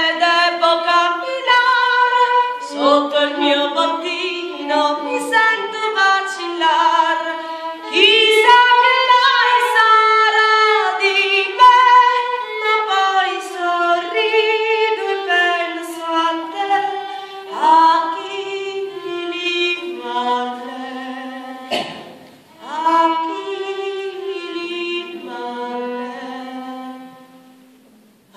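A woman singing a slow melody with violin accompaniment, the voice sliding between long held notes. It breaks off briefly about two-thirds of the way through and dies away near the end.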